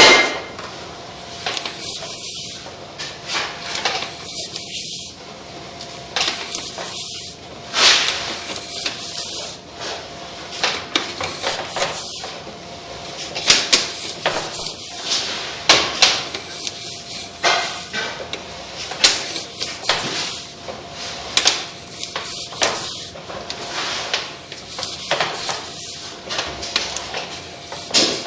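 Sewer inspection camera's push cable being pulled back out of the pipe: irregular knocks and clicks of the cable and reel being handled, over a faint steady hum.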